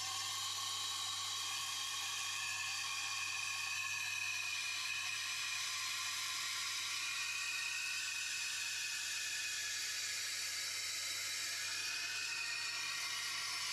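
Tormek T8 water-cooled sharpener running, its coarse stone grinding the steel of a Global knife blade held in a jig: a steady grinding hiss over the machine's low hum, as the edge is passed along the stone to grind out a large chip.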